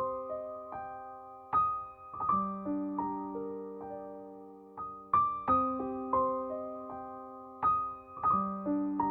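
Gentle background piano music: single notes and chords struck one after another, each fading slowly, in a phrase that repeats about every three seconds.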